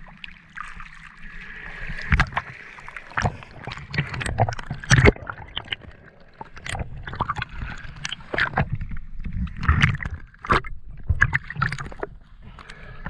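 Water sloshing and splashing around the camera as a spearfisher duck-dives from the surface, then underwater gurgling and bubbling with many irregular sharp knocks and clicks.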